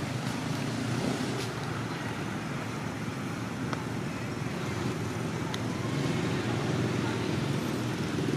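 Steady low rumble of motor traffic, with a few faint clicks, growing slightly louder about six seconds in.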